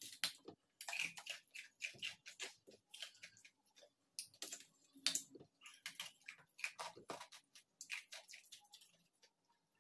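Faint crunching of a chunk of ice being bitten and chewed: many short, irregular crunches that stop near the end.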